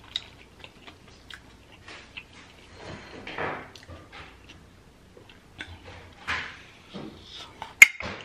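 Metal fork clinking against a glass bowl while twirling noodles, with the sounds of noodles being eaten about three seconds in. Near the end, one sharp, loud clink as the fork is laid down on the tray.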